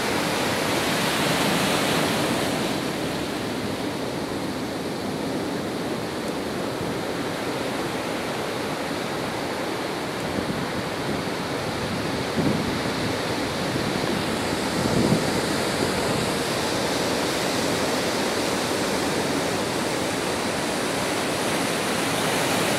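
Heavy storm surf breaking over a concrete pier: a steady rush of churning white water, with two brief louder surges a little past halfway.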